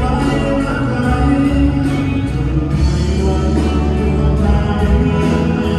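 Music with a singing voice over sustained instrumental notes and a steady beat of about two strokes a second.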